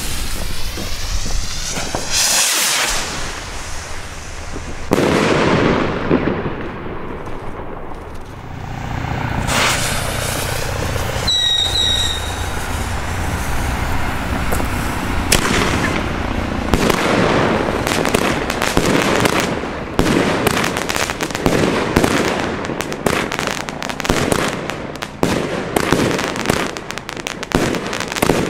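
Consumer fireworks going off: several rising whooshes of launching shots in the first ten seconds and a short whistle about twelve seconds in. From about fifteen seconds on, a fast run of shots bursting into crackling stars.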